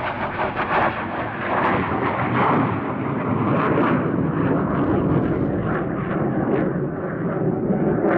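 F-16 fighter jet passing overhead after takeoff: loud, continuous jet noise with a ragged crackle, its higher part fading over the seconds as the jet climbs away.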